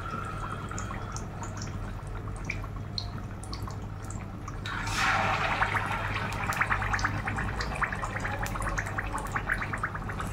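Batter-dipped potato and wheat-flour mathri frying in hot oil in a pan, at first a faint sizzle. About five seconds in another piece goes into the oil and the sizzling swells into a louder, dense crackle that keeps going.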